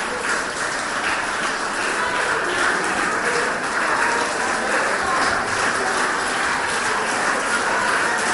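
Steady, dense crowd noise from a large group of seated schoolchildren in a hall.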